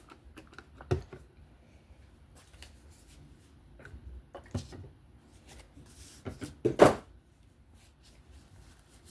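Small objects and tools being handled and set down on a work surface: a few scattered knocks and clicks, the loudest about two seconds before the end.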